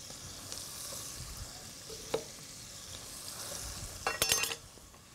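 Diced vegetables sweating in a stockpot, a faint steady sizzle, with a single sharp knock about two seconds in and a short clatter with a ringing edge about four seconds in.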